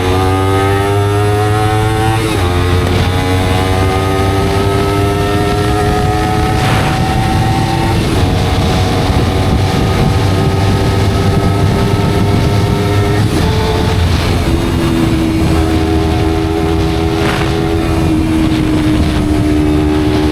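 Honda CBR250RR motorcycle with an Akrapovic-style aftermarket exhaust under way, its engine note climbing steadily and dropping sharply at each of about four upshifts. A steady low rumble runs underneath.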